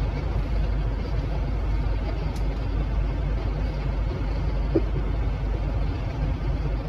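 Steady low rumble inside a stationary car's cabin, with one short blip about five seconds in.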